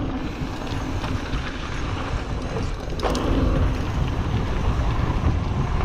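Wind buffeting the camera's microphone over the rolling noise of a 2021 Giant Trance X mountain bike's tyres on a dirt fire road, with one sharp rattle about three seconds in.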